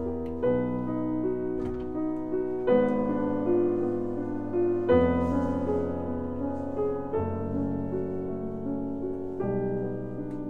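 Background piano music: slow chords struck every two seconds or so and left to ring.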